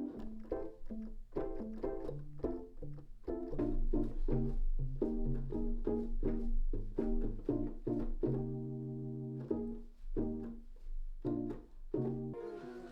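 Background music: short plucked string notes over a deep low line, with a longer held chord partway through.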